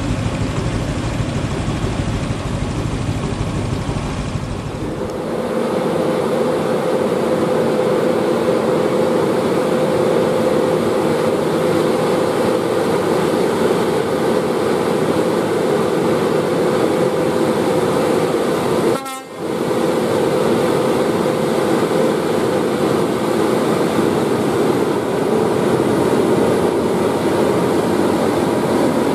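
Scania truck's diesel engine running steadily under load on a steep climb, a continuous drone with a steady tone in it. About five seconds in the deep rumble drops away, and the sound dips briefly about two-thirds of the way through.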